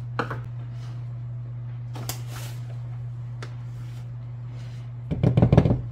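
Handling sounds at a kitchen counter: a few faint clicks and a brief rustle as a large plastic sugar bag is folded closed, over a steady low hum. A little after 5 s comes a short, louder burst of clattering and rustling, the loudest sound here.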